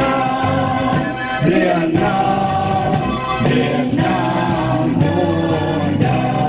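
Music with a choir singing long, held notes.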